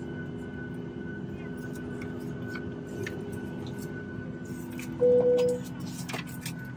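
Steady hum inside the cabin of a Ryanair Boeing 737 MAX, with a few steady tones over it. About five seconds in, a single loud cabin chime sounds for about half a second.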